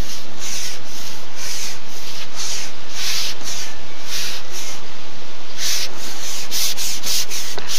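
Carbon pole for carp fishing being slid back over its roller and through the angler's hands: a run of rubbing swishes, about two a second, coming quicker near the end.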